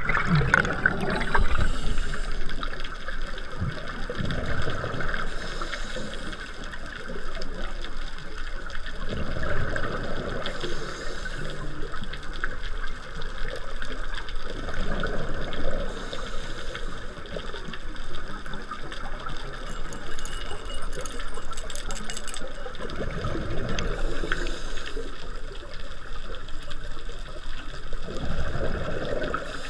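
Scuba diver breathing through a regulator underwater: a short hissing inhale, then a rumbling burst of exhaled bubbles, repeating about every five seconds.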